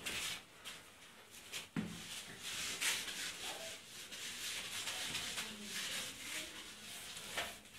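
Whiteboard duster rubbing across a whiteboard in repeated wiping strokes, erasing marker writing.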